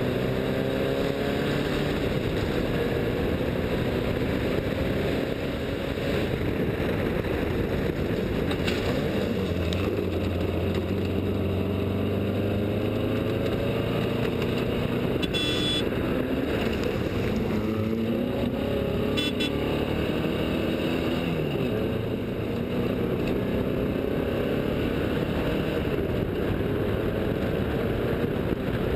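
Off-road desert race vehicles' engines running and revving, their pitch rising and falling as they accelerate and ease off. Two brief high-pitched chirps come about halfway through.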